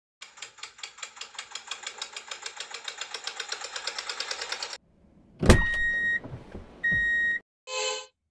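Dubbed engine sound effect chugging in rapid even pulses, about ten a second, for nearly five seconds. It stops, and then comes a sudden loud crash followed by two steady beeps and a short horn-like honk near the end.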